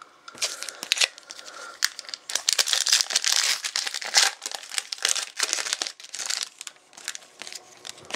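Foil trading-card pack wrapper being torn open and crinkled: a run of irregular crackles and rustles, densest in the middle.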